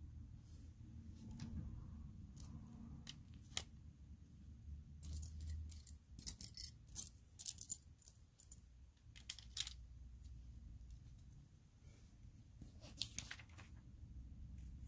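Plastic Lego pieces being handled during a build: scattered light clicks and small clatters, over a low steady room hum.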